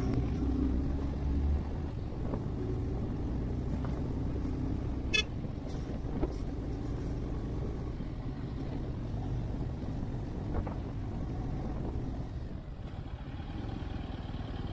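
Motorcycle engine running steadily while riding up a ghat road, with a short horn beep about five seconds in.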